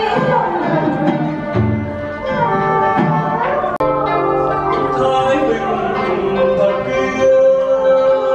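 Traditional Vietnamese water-puppet theatre music: singing over stringed instruments and drums, with long held notes. It breaks off for an instant about four seconds in and carries on.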